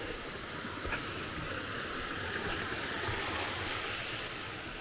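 Steady rush of falling water from a waterfall and stream in the gorge below, swelling a little in the middle, with a couple of faint knocks.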